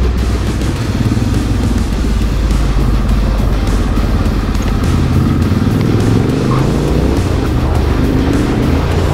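Off-road motorcycle engines running, with the pitch rising and falling between about six and nine seconds in, under background music.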